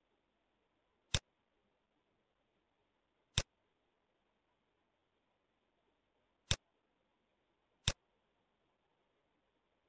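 Four sharp computer mouse clicks, irregularly spaced a second or more apart, with only faint hiss in between.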